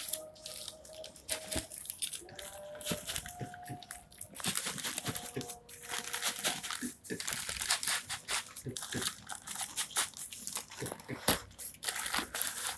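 Plastic and cardboard packaging being unwrapped and handled: crinkling and rustling with scattered taps and knocks, busier from about four seconds in.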